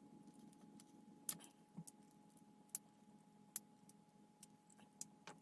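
A handful of small, sharp, spread-out clicks and clinks from handling small hobby parts and tools, over a faint steady hum.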